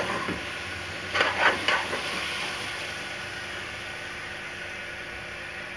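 Grated carrots frying in ghee in an aluminium pot: a steady sizzle, with a few scrapes of a metal spoon against the pot in the first two seconds as the mixture is stirred.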